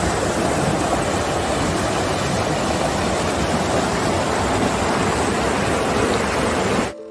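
Mountain stream rushing over boulders: a loud, steady rush of water that cuts off suddenly near the end.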